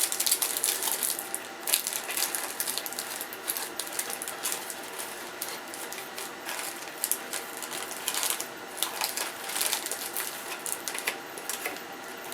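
Hands rummaging through small hard parts and loose items: irregular clicks, taps and rattles.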